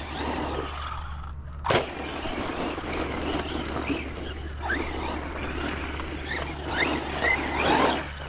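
Brushless electric motor of an Arrma Vorteks 4x4 RC stadium truck on a 3S battery, whining as it accelerates and lets off over dirt, its pitch rising and falling with the throttle. A sharp knock about two seconds in.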